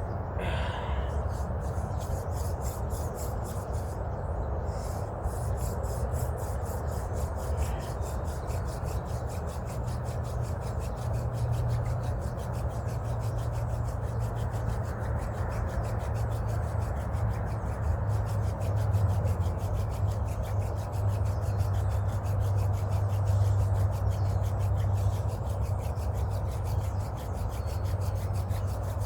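Friction fire drill: a yucca wood spindle grinding steadily into a yucca fireboard in fast, even strokes, wood rubbing on wood to build an ember.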